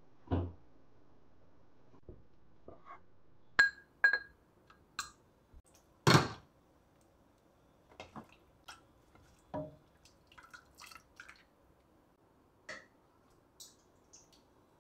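Dishes and tableware being handled: scattered light knocks and ringing clinks of crockery, the loudest a single knock about six seconds in.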